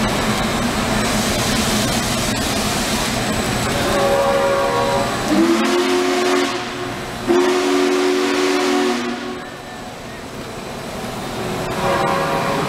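A Metra commuter train rolls past at close range, with a steady rumble of wheels and cars. A higher-pitched horn chord sounds about four seconds in and again near the end. Between them, a deeper whistle chord sounds in two long blasts, rising slightly in pitch as the first one opens.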